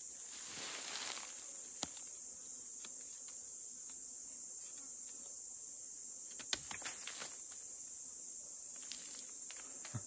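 Insects chirring steadily in a high, even drone, with a few faint scattered clicks and taps of something being handled.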